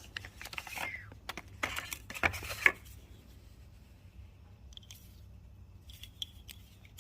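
Knife packaging being handled: a run of quick clicks and rustles of paper and box for about three seconds, then a few faint light ticks.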